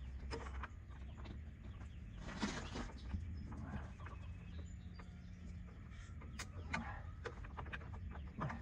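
Chickens clucking, with scattered light clicks of a hand tool on a tractor's hydraulic pipe fitting.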